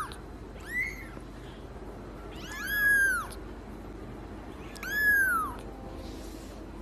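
Young kitten mewing: four high-pitched mews, each rising then falling in pitch, spread over about five seconds, the last two longer than the first two.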